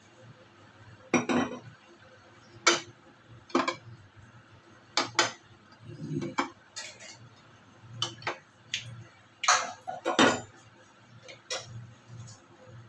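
Kitchen utensils and cookware clinking and clattering, about a dozen irregular knocks. The loudest come about a second in and about ten seconds in.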